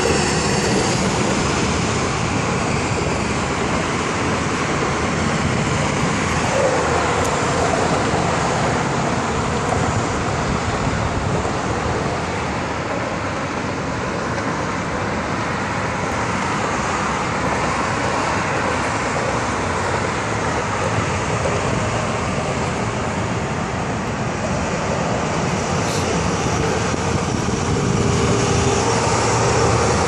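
Steady road traffic noise from vehicles passing continuously, swelling louder near the end.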